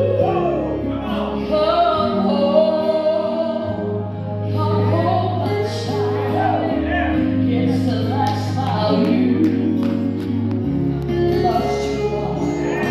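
Southern gospel song: a woman singing the lead into a microphone over musical accompaniment with held bass notes, heard through the PA.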